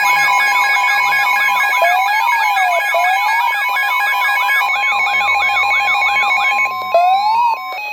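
Emergency Alert System alert tones sounding together: a steady high tone under a fast repeating siren-like wail and held beeps. They cut out about seven and a half seconds in, leaving fainter stepping beeps. They mark the start of a new severe thunderstorm warning.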